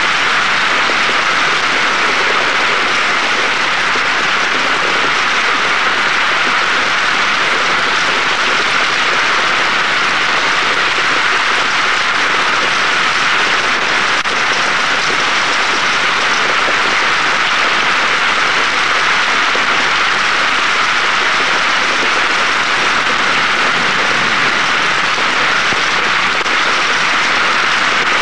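Steady rain, an even, unbroken hiss with no let-up.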